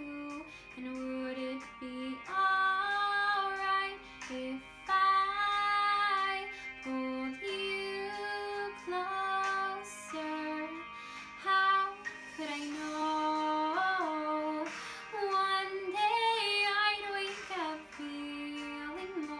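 A woman singing solo, holding long notes and sliding between pitches.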